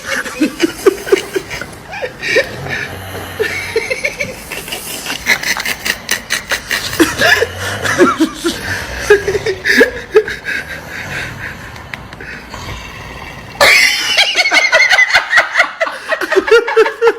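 People laughing in short repeated bursts, with a sudden jump to louder laughter about three-quarters of the way through.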